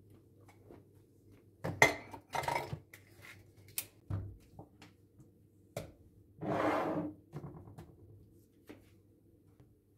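Kitchen containers being handled on a counter: a baby bottle, a jar and a glass are picked up, screwed together and set down, giving a string of sharp clicks and knocks. There is a longer scraping noise of under a second a little before the seven-second mark.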